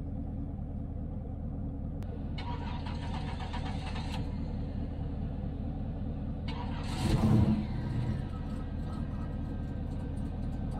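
A GMC Syclone's turbocharged 4.3-litre V6 cranked on the starter for about two seconds, then cranked again about six and a half seconds in and catching with a brief louder burst, over a steady low rumble. It is hard starting, which the owner puts down to a fuel-delivery fault, most likely the old aftermarket fuel pressure regulator.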